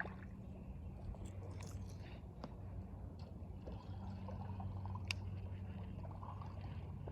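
River water running, with a steady low hum underneath and a few faint clicks.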